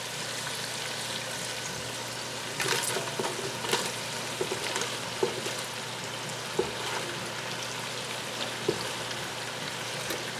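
Diced bacon sizzling steadily as it renders in a soup pot. From about two and a half seconds in come scrapes and light knocks as chopped onions and sliced mushrooms are pushed off a plastic cutting board into the hot fat and moved around.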